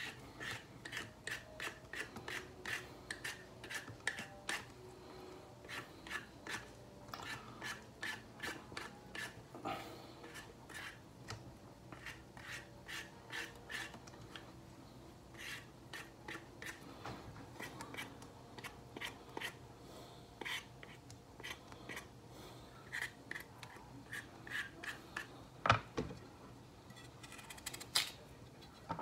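A small kitchen knife peeling a root vegetable by hand: short scraping strokes of the blade against the skin, about two a second and then more sparsely, with a couple of sharper knocks near the end.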